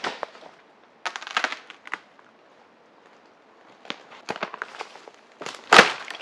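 Dry twigs and branches crackling and snapping in irregular bursts, with the loudest sharp snap near the end.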